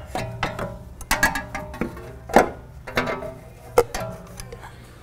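Metal tools and suspension parts clinking and clanking as they are handled, a string of irregular sharp strikes, each ringing briefly.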